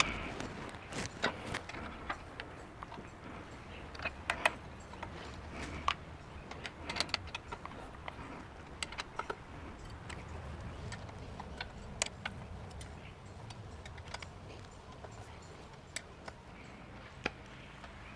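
Irregular metallic clicks and clinks of hand tools on bolts as the lathe headstock's hold-down bolts are tightened back down over new shims. The clicks come in scattered clusters, the loudest around four to four and a half seconds in.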